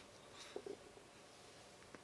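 Knuckle joints popping: two quick small cracks about half a second in, then quiet room tone with one faint tick near the end.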